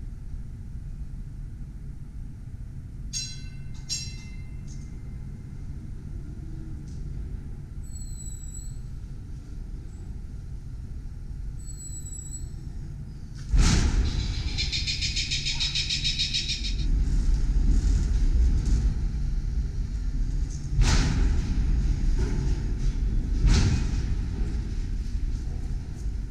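A CLRV streetcar pulling into a shop bay over low background hum: a sudden loud clatter about halfway through, a couple of seconds of high-pitched ringing, then a heavy low rumble of the car rolling on the rails with two loud clunks near the end.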